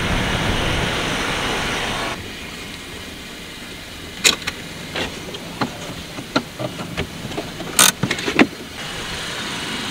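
Car heard from inside the cabin: a steady rush of engine and road noise that drops off abruptly about two seconds in. Then comes a quieter stretch with a dozen or so irregular sharp clicks and knocks, and the noise picks up again near the end.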